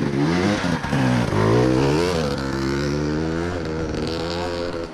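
Motorbike engine revving and pulling away, its pitch climbing twice in the first two seconds as it goes up through the gears, then running at a steady pitch.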